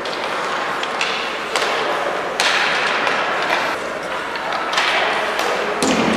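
Youth ice hockey play: a steady hiss of skates on the ice broken by several sharp knocks of sticks and puck, with a louder hiss for about a second from about two and a half seconds in.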